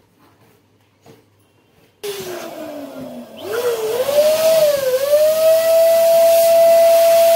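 Electric balloon pump switched on about two seconds in, blowing air into a latex balloon with a loud hiss and a whining tone that first dips, then rises and wavers as the balloon fills.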